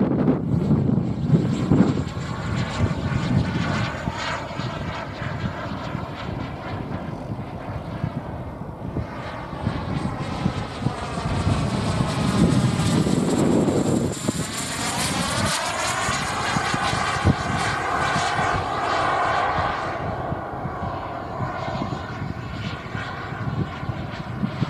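Jet Munt 100 model gas turbine on a radio-controlled jet, running in flight with a steady whine. Its sound sweeps in pitch and grows brighter as the jet passes overhead about halfway through.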